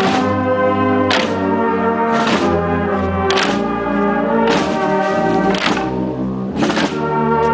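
A brass band playing a slow processional march: held brass chords over a percussion stroke about once a second.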